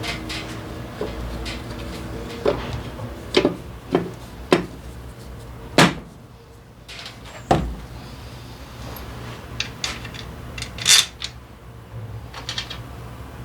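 Metal hand tools and parts clinking and knocking in short irregular strikes, about a dozen, the loudest about six seconds and eleven seconds in, over a faint steady low hum.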